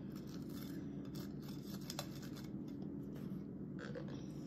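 Butter knife spreading Miracle Whip on toast: soft, irregular scraping of the blade across the bread, with a single light click about two seconds in, over a steady low hum.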